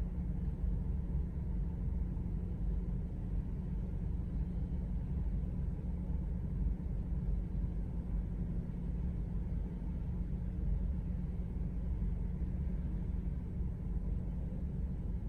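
A car idling at a standstill, heard from inside the cabin: a steady low engine rumble and hum.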